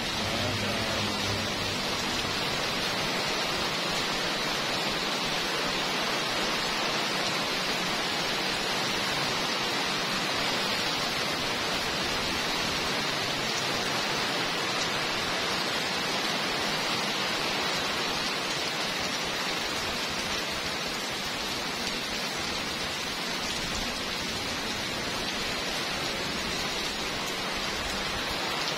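Heavy pouring rain falling steadily on a paved street and pavement, an even, unbroken hiss of rain.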